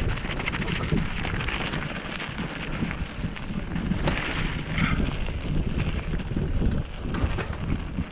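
Wind buffeting the microphone of a mountain bike rider moving along a dirt trail, over a steady rumble of tyres on gravelly dirt with frequent small clicks and knocks from the bike.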